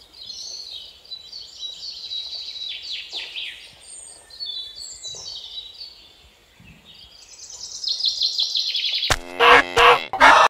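Small birds chirping with quick high, downward-sweeping notes, then a fast trill. About nine seconds in, louder pitched calls from a larger animal break in, in two bursts.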